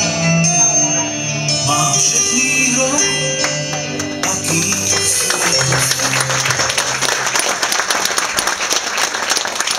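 The closing bars of a song with instrumental backing fade out about halfway through. The audience then breaks into applause, which carries on.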